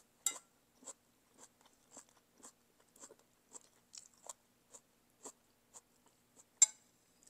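Close-miked chewing of a mouthful of bún bò Huế noodles and beef: soft, wet mouth clicks about twice a second, with one sharper click near the end.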